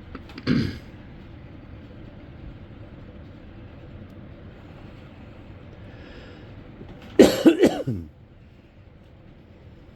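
A person coughing: a short cough about half a second in, then a louder fit of several coughs about seven seconds in, over a steady low background hum.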